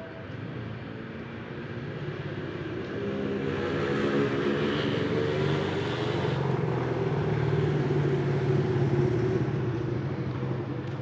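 A bus engine running as the bus passes, growing louder to a steady peak and then fading away near the end.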